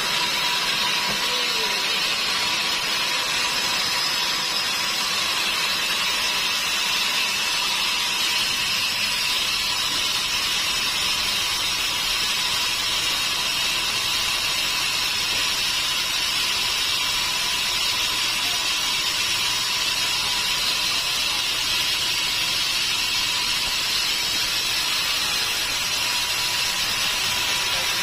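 Sawmill saw running steadily: a continuous loud hiss with a steady high whine.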